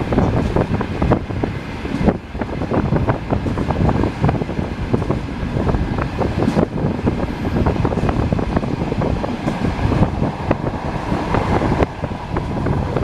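Passenger train carriage running along the track, heard from inside the coach: a steady rumble of wheels on rails with frequent clattering knocks.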